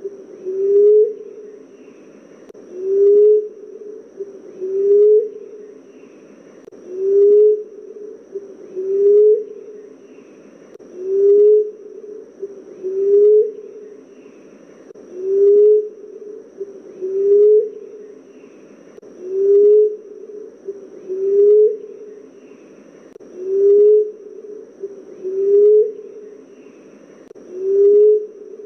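Emerald dove cooing over and over, a low soft coo about every two seconds, each one rising slightly in pitch. Faint higher chirping goes on behind it.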